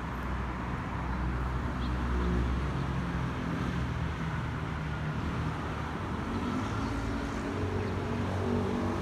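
Airbus A321neo's CFM LEAP-1A turbofan engines heard from the ground as the jet flies over at a distance: a steady jet roar with a deep rumble that is strongest for the first two seconds or so, then eases.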